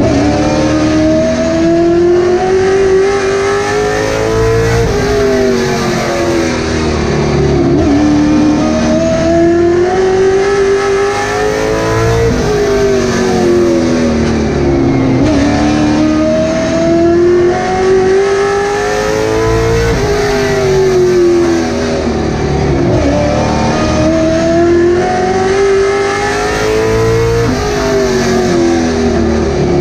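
Late Model stock car's V8 engine heard from inside the cockpit at racing speed. Its pitch climbs steadily down each straightaway and drops sharply as the driver lifts for the corners, repeating about every seven to eight seconds as the laps go by.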